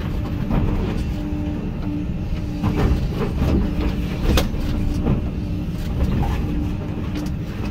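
Hyundai HX220AL excavator running, heard from inside its cab: a steady low engine rumble with a thin hum that cuts in and out, and several sharp metal knocks as the machine works.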